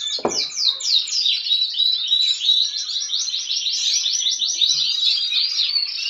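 Caged finches singing: a fast, unbroken run of short repeated chirping notes, each falling in pitch.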